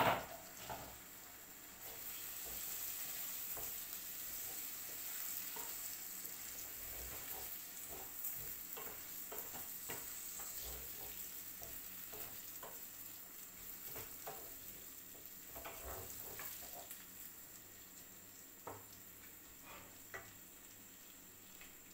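Rice frying in butter with onion and tomato in a stainless steel frying pan, sizzling steadily, while a wooden spoon stirs it with soft scrapes and taps against the pan. A sharp knock sounds right at the start, and the sizzle picks up about two seconds in.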